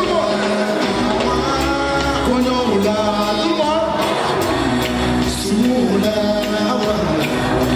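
A man singing over amplified music with a bass line and a steady drum beat.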